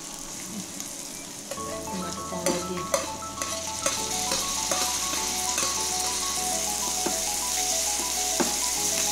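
Tadka of ginger, garlic and green chilli sizzling in hot mustard oil in a small steel pan, stirred with a metal spoon that clicks against the pan. The sizzle grows louder about four seconds in, as chopped tomatoes are tipped into the oil. Soft instrumental background music plays under it.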